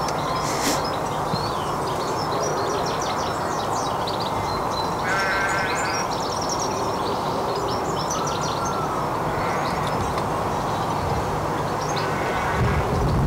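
Outdoor garden birdsong: small birds chirping and singing in short high notes over a steady background hum. A single harsh, held bird call sounds about five seconds in.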